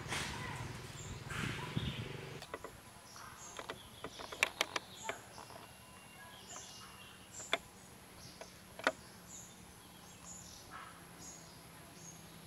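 Forest ambience: scattered short bird chirps over a faint, steady high insect hum. A burst of rustling comes at the start, then a few sharp snaps, a cluster about four seconds in and two more later.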